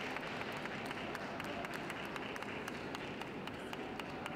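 Scattered light clapping from spectators, irregular claps several a second, over a steady background rumble.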